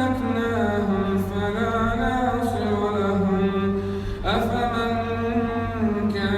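A male reciter chanting the Quran in a slow, melodic style, holding long drawn-out vowels that slide gently in pitch. A new phrase begins about four seconds in.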